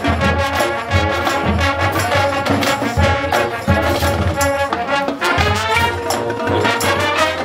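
High school marching band playing its field show: brass over regular bass drum beats, with the brass moving to held chords a little past five seconds in.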